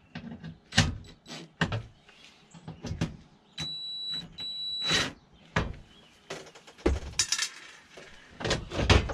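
A DeWalt cordless drill-driver whines in two short runs, backing out the screws of a breaker panel's sheet-metal cover. Around the runs come knocks and clatters as the tool and screws are handled, with heavier clanks near the end as the cover is lifted off.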